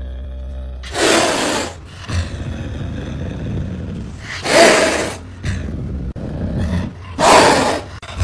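Caracal hissing and snarling with open mouth, three loud bursts about three seconds apart, with a low rumble between them.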